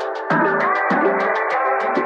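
Background music: sustained electronic chords over a bass line that changes note about every half second, with a fast, even ticking beat.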